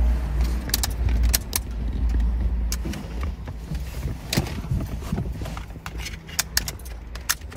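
Mercedes W204's ignition being tried with a scatter of sharp clicks and a low rumble over the first few seconds, but no starter cranking: the car still won't crank, a no-crank fault with CAN communication failures to the transmission, gear selector and fuel pump modules.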